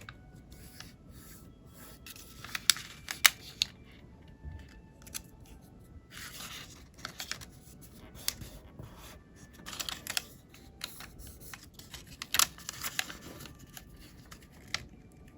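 Square colored origami paper being folded and creased by hand: irregular rustling swishes and crisp snaps as folds are pressed, the sharpest a few seconds in and again past the middle.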